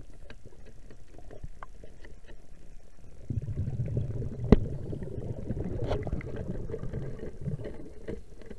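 Underwater sound through a camera housing: a low rumble of water moving around the camera, growing louder a little after three seconds in, with scattered clicks and crackles and one sharp knock about four and a half seconds in.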